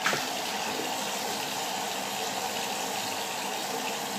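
Water running steadily from a bathroom sink tap, with a short knock just at the start.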